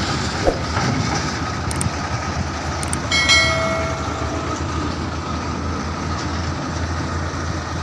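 Heavy-haul truck pulling a multi-axle lowboy trailer drives past with a steady engine and tyre rumble on a gravel road. A horn sounds briefly about three seconds in.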